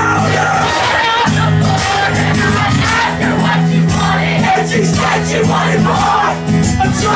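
Acoustic guitar playing a song while a crowd sings along loudly.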